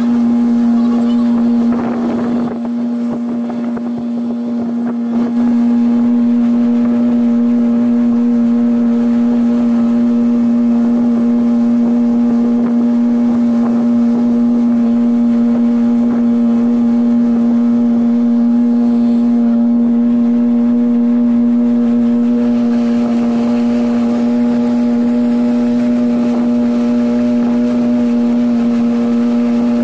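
Motorboat engine running at a constant speed, a steady hum that holds one pitch throughout.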